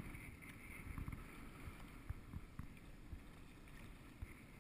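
Quiet sounds of a sea kayak being paddled: faint water splashing and lapping against the hull, with irregular low knocks and wind buffeting on the microphone.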